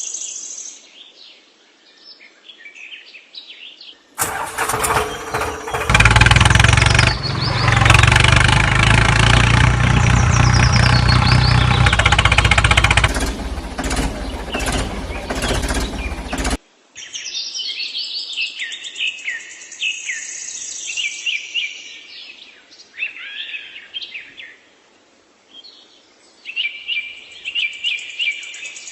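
Birds chirping over a quiet outdoor background, broken from about four seconds in by a loud, deep mechanical noise that stops abruptly after roughly twelve seconds, after which the birdsong carries on.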